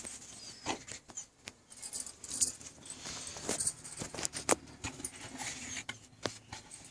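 Handling noise from unpacking a cordless phone's box: soft rustling with scattered light clicks and taps as the contents are lifted out.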